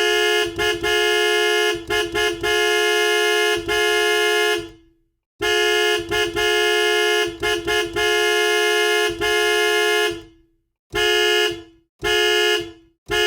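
Two-note car horn honked in a stop-start rhythm of short toots and longer blasts, used as an emergency-alert attention tone. The pattern plays twice with a short break between, then three short separate blasts follow near the end. Each blast ends with a slight drop in pitch.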